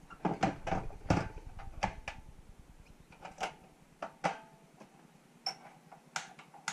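Portable butane camp stove being loaded: its cartridge compartment cover opened, a gas canister set in and seated, and the cover shut. The result is a run of sharp plastic and metal clicks and clunks, many close together in the first two seconds and then single clicks every second or so.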